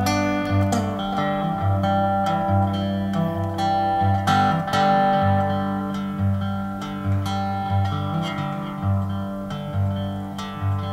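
Background music led by plucked acoustic guitar, with notes picked in a steady rhythm over a repeating bass line.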